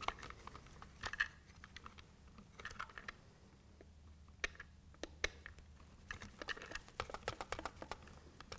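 Hand wire strippers cutting and stripping insulated wire: faint, irregular clicks and short snips as the jaws close, with the wires and the plastic faceplate being handled.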